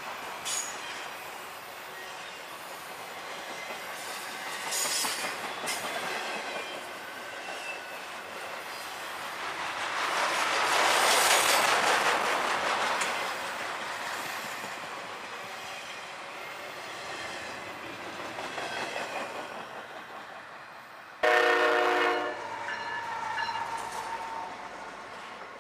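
Intermodal freight train of trailers on flatcars rolling past: steel wheels clacking over the rail joints with a faint squeal on the rail, swelling loudest about halfway through. About 21 seconds in, after a cut, a diesel locomotive horn gives a short, loud blast, followed by fainter ringing tones.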